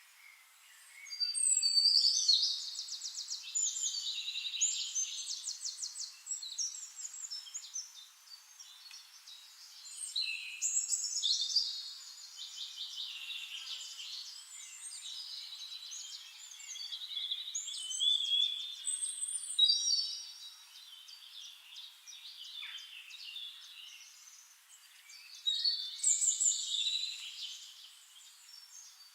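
A songbird singing long, varied phrases of rapid trills and chirps, in four bouts with short pauses between them.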